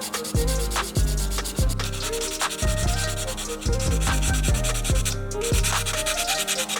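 Sanding: rapid rubbing strokes of abrasive on a model car part, with heavy low thumps recurring about once a second underneath.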